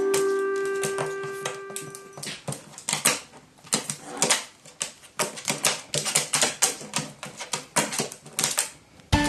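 A held keyboard chord dies away over the first two seconds, then irregular sharp taps and clicks, several a second, on a hard surface.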